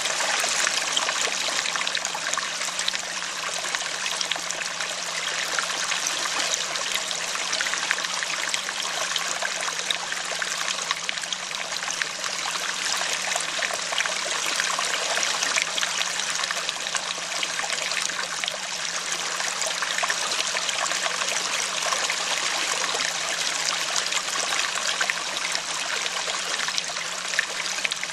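Running stream: steady trickling, splashing water that does not change over the whole stretch.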